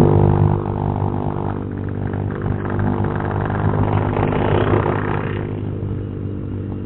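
Honda Vario 150 scooter's single-cylinder four-stroke engine running through an aftermarket replica exhaust while riding, a steady low exhaust note that eases a little after the first second. A brief hiss rises and fades about two-thirds of the way in.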